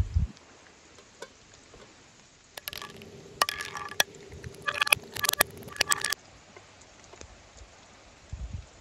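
Whole walnuts in their shells dropped onto a wooden cutting board, bouncing and clattering in a quick run of sharp, slightly ringing knocks that lasts about three and a half seconds.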